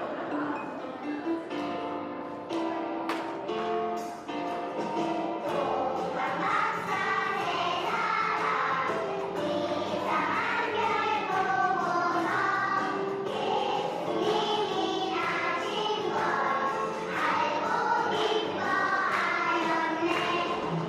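A group of children singing a Christmas song together with musical accompaniment.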